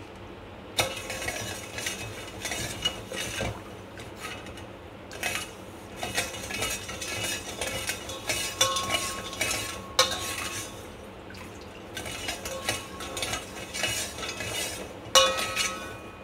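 Steel spoon stirring sugar and water in a steel pot for sugar syrup, scraping and clinking against the metal. It starts about a second in and goes in spells with short pauses, and some strokes leave a brief metallic ring.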